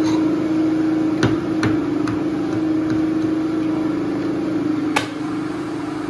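Sharp metallic clicks of a Hitachi pneumatic coil nailer being worked on by hand, with a few close together in the first two seconds and a loud one about five seconds in, over a steady hum. The gun had stopped firing and is being fixed, its nails redone.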